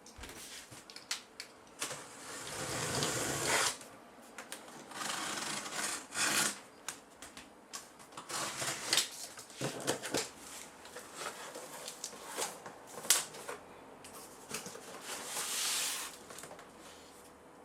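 Handling noise: a series of rubbing and scraping sounds, several lasting a second or two, mixed with scattered sharp clicks and knocks, the loudest click about thirteen seconds in.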